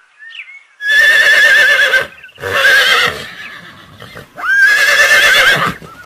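Horse whinnying three times: two long, quavering whinnies with a shorter one between them.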